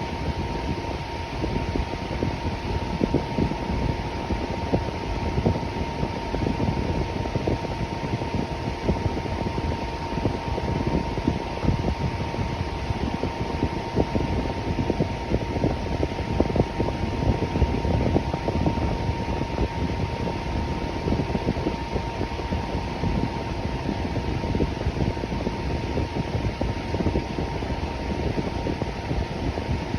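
Electric fan running steadily: an even rush of moving air, with a faint steady whine underneath.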